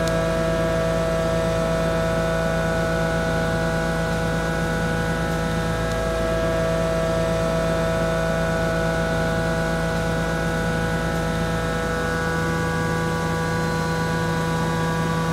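Walter M3024 face mill, 50 mm with six LNHU inserts, taking a finishing cut in 42CrMo4 steel: a steady, even humming tone with a row of overtones over a low rumble. The rumble drops away about twelve seconds in while the tone carries on.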